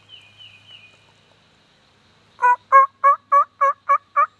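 Turkey mouth call (diaphragm call) blown as a hen yelp series to lure a gobbler: a run of about seven short, evenly spaced, two-toned yelps, about three a second, starting a bit over two seconds in.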